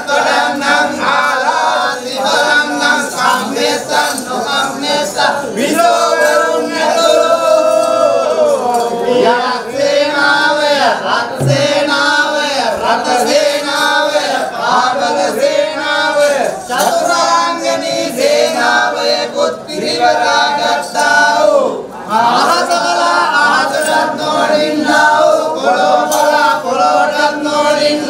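Male voices chanting shanthikarma kavi, the sung ritual verses of a Kandyan Waliyak Mangalya, in long melodic phrases.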